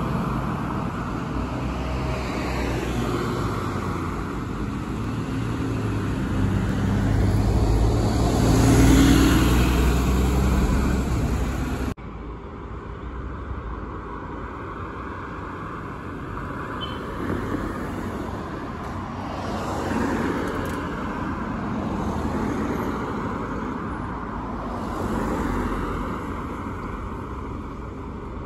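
Diesel bus engine and tyre noise from road traffic: a single-deck bus draws near and passes close, loudest about nine seconds in. After an abrupt cut, quieter traffic noise follows as coaches and a double-deck bus approach, swelling a little twice.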